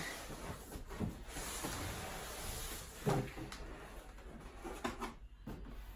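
Cardboard box and packaging being handled and opened: a stretch of rustling and scraping with a few soft knocks.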